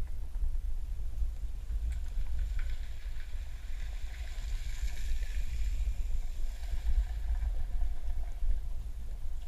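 Muffled low rumble of water moving past an underwater camera housing, with a faint hiss that swells and fades midway.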